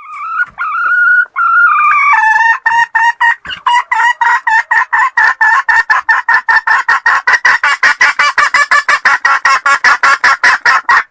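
Red junglefowl hen calling: a few drawn-out notes, then a long run of quick clucks, about four to six a second, that speeds up slightly.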